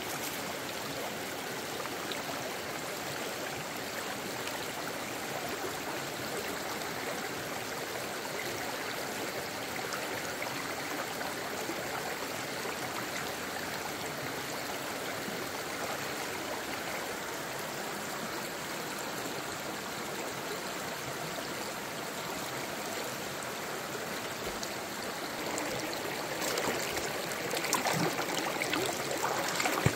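Steady rush of flowing water, like a stream, with a few short clicks and knocks over it in the last few seconds.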